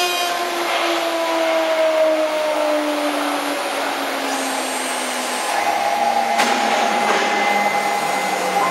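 6090A CNC wood router's spindle motor whining over the hiss of the cutter working wood. The whine falls slowly in pitch over the first five seconds or so. After a click about six and a half seconds in, it holds a new steady pitch.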